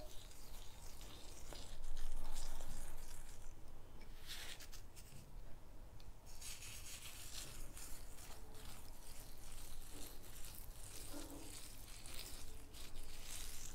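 Faint scratchy rubbing of fingertips working a gritty sugar and olive oil scrub over facial skin, with a somewhat louder stretch about two seconds in.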